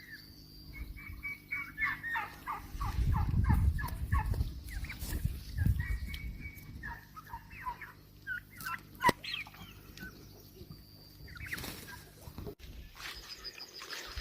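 Farm fowl calling in quick runs of short falling notes, several a second. A low rumble swells under the calls a few seconds in.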